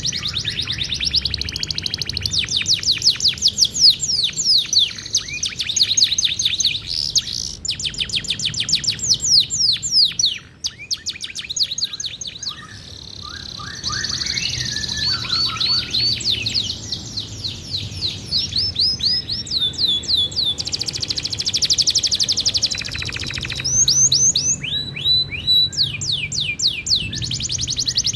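Domestic canary singing a long, continuous song of rapid trills made of fast repeated downward-sweeping notes, varying from phrase to phrase, with a short lull about ten seconds in.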